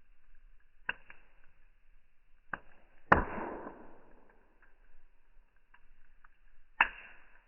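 Fire crackling and popping, slowed down: four sharp pops, the loudest about three seconds in with a short trailing rush, and faint ticks between them.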